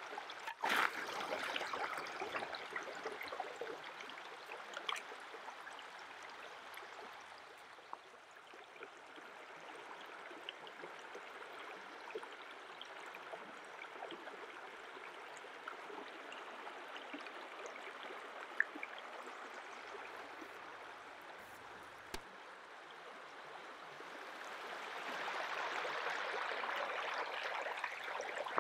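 Shallow stream running over pebbles, a steady rush that swells again near the end, with small scattered clicks and scrapes of a knife working a fish on a wooden board.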